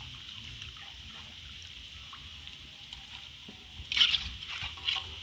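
Balls of food deep-frying in hot oil in a metal wok, a steady sizzle. A metal ladle scrapes and knocks against the pan about four seconds in and again a second later.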